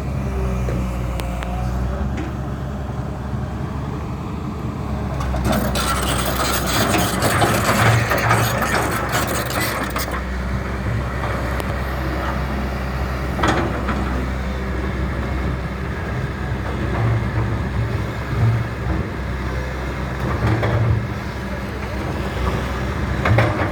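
Backhoe's diesel engine running steadily, with a harsher, noisier stretch of working sound about six to ten seconds in.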